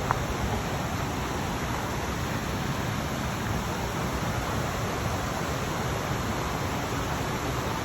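Steady rushing of water in the rainforest, an even hiss with no rhythm, with a single short click right at the start.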